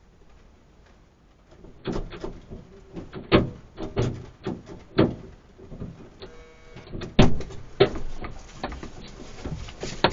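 A run of irregular knocks and bangs, loudest about seven seconds in, with a brief whine shortly before the loudest knock.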